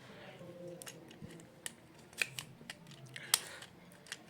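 Irregular sharp clicks and snips from small hand tools and plastic parts being handled while repairing an electrical plug switch. The loudest clicks come about two seconds in and just past three seconds.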